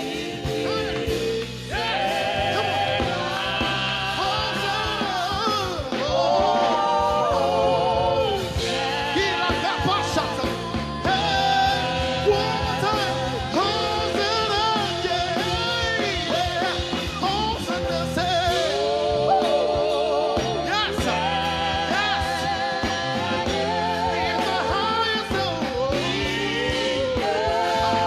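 Gospel worship song: sung vocals with vibrato over a band accompaniment.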